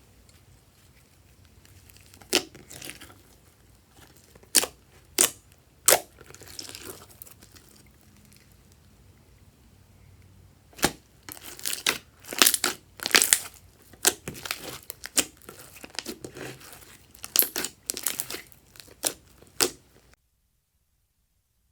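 Crinkling, crackling handling noises in irregular clusters of sharp snaps, typical of close-miked slime-making ASMR. They cut off suddenly near the end.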